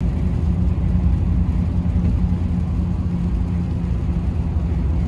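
Steady low in-cabin drone of a Toyota Tundra pickup cruising on a wet highway: engine and tyre noise on the rain-soaked road.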